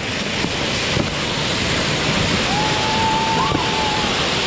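Ground fountain fireworks (flower pots) spraying sparks with a steady, loud rushing hiss. About halfway through, a thin whistle-like tone holds for a second and a half.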